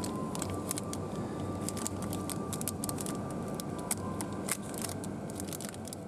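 Long fingernails tapping and scratching at plastic-wrapped snack bars, making many quick sharp clicks and wrapper crinkles. Under them is a steady supermarket background hum with a faint high steady tone.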